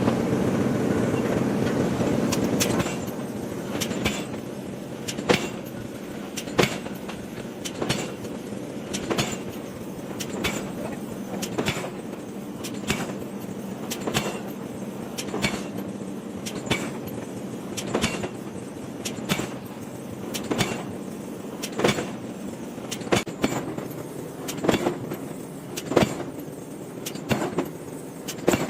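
Industrial forging: heavy hammer blows on hot iron at a steady pace, about one sharp strike every second and a quarter, with lighter knocks between them over a steady machine hum. For the first three seconds a louder steady rumble covers the strikes.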